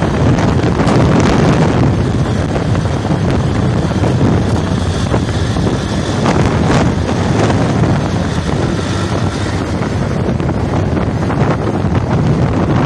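Steady wind buffeting the microphone of a phone riding on a moving motorcycle, with the motorcycle running underneath.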